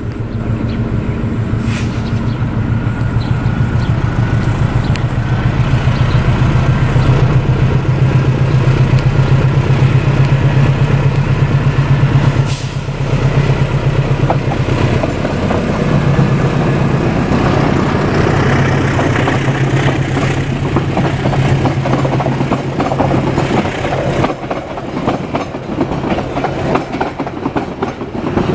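GE CC206 diesel-electric locomotive with a GE 7FDL engine, its engine rumbling loud and steady under power as it climbs a slight grade and passes close by. In the second half the passenger coaches roll past with a fast clickety-clack of wheels over the rail joints.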